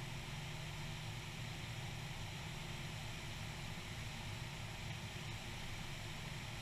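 Cessna 172 in cruise flight, heard from outside the aircraft: a steady low drone of its engine and propeller under an even hiss of wind, without change.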